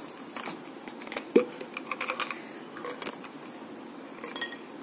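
Light clicks and taps of plastic supplement bottles and caps being handled, with one sharper knock about a second and a half in.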